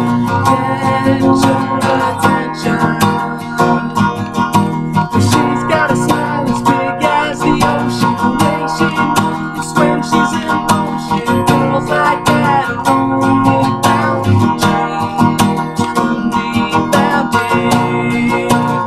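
Acoustic guitar strummed in a steady rhythm, its chords ringing.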